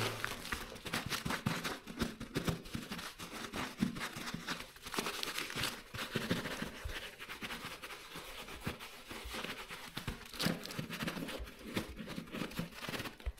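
Paper towel rubbing and crinkling over leather boxing gloves as they are wiped dry, a run of quick, irregular rustling strokes.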